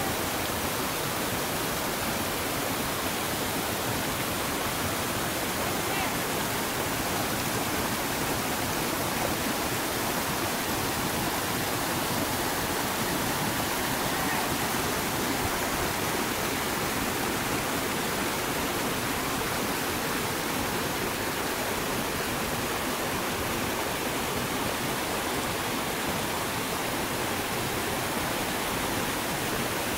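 Steady rush of whitewater: a mountain river pouring over and between boulders in rapids, an even roar of water.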